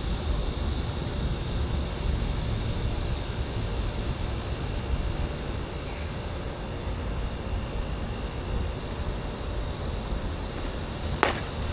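Insect chirping in short trains of four or five high ticks, repeating about once a second over a steady low rumble. A single sharp crack comes near the end.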